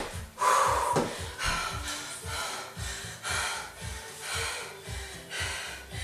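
A woman breathing hard in quick, repeated breaths, out of breath after intense cardio exercise. There are a couple of thumps on the floor in the first second.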